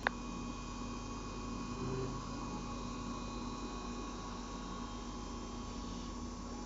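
Kern MMT milling machine running with a steady hum and whine of fixed tones over a hiss. A single sharp click sounds right at the start.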